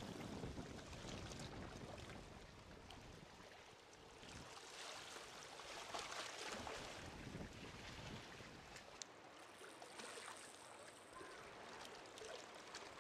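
Faint water sounds from a sea kayak being turned on the spot: paddle blades splashing and small waves lapping, swelling a little mid-way.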